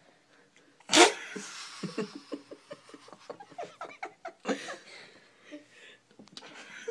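People laughing hard: a sudden loud outburst about a second in, then a run of quick, short laughs and another outburst midway.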